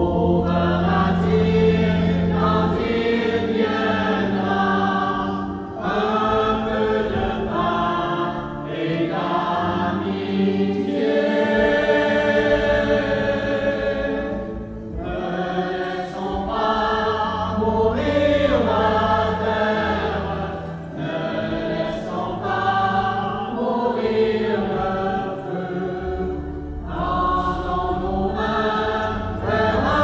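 Mixed church choir of men and women singing a hymn in phrases a few seconds long, with steady low held notes underneath.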